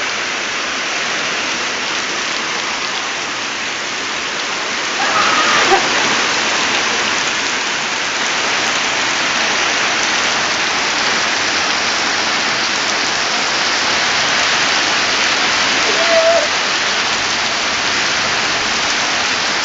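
A heavy hailstorm with rain: a dense, steady hiss of hail and raindrops pelting down on surfaces. Two short louder sounds break in about five seconds in and again around sixteen seconds.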